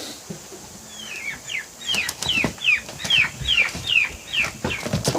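Poultry peeping: a run of about a dozen short, high notes, each falling in pitch, at about three a second.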